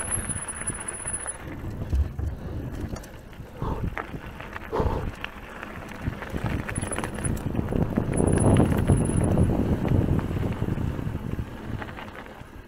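Mountain bike ridden over rough trail: tyres rumbling and the bike rattling over bumps, with several sharp knocks, loudest about eight to ten seconds in. A thin high whistle comes and goes twice.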